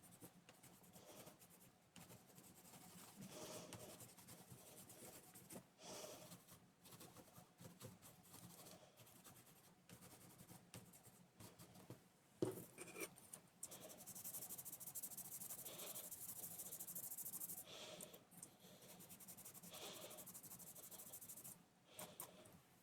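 Faint rubbing and scraping as old thermal paste is wiped off the laptop's processor and cooling heatsink, with a steadier stretch of hissy rubbing past the middle.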